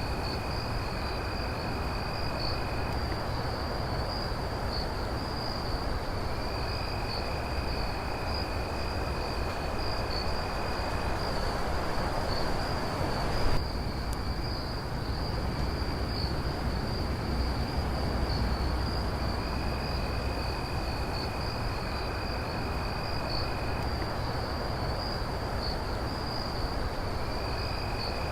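A night chorus of crickets chirping in an unbroken high-pitched trill, with a lower trill that sounds in long spells of a few seconds and breaks off between them, over a steady background hiss. There is one short knock about halfway through.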